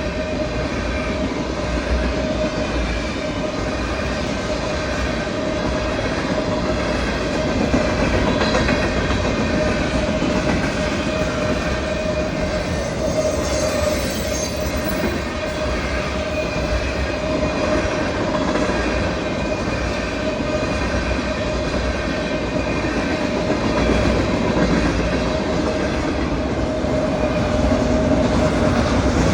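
Train rolling past, the cars' wheels on the rails giving a steady rumble with a sustained high-pitched squeal over it.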